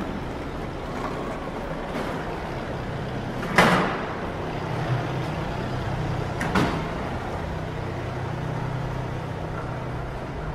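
City street traffic, a steady low rumble and hum of vehicles. A short, sharp noise stands out about three and a half seconds in, the loudest moment, and a smaller one follows about three seconds later.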